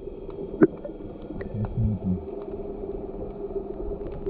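Muffled underwater sound through a waterproof action camera held below the surface: a steady hum with scattered clicks and taps, and one louder knock less than a second in.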